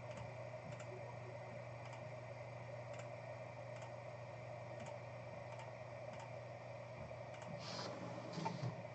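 Faint computer mouse clicks and keyboard taps, sparse and scattered about once a second, over a steady low electrical hum, with a few slightly louder clicks near the end.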